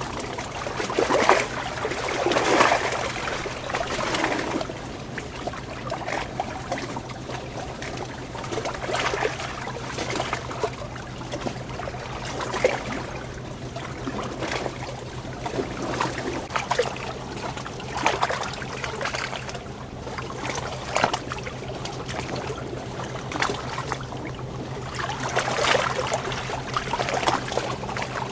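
Water trickling and splashing in a small stream, rising and falling in irregular swells every few seconds, over a steady low hum.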